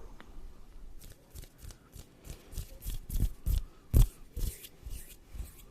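ASMR hand movements: a quick run of short rustling, brushing strokes, several a second, starting about a second in, some with a soft thump, the loudest about four seconds in.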